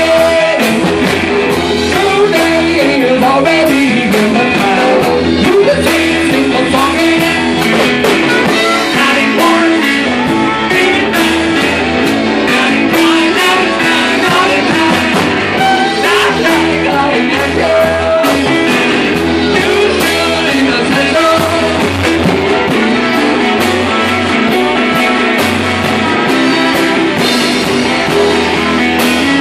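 Live rock band playing loud, with electric guitar, drums and singing.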